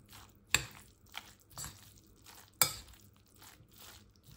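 Metal spoon stirring a mayonnaise-dressed beetroot salad in a glass bowl, with sharp clinks of the spoon against the glass, loudest about half a second in and again about two and a half seconds in.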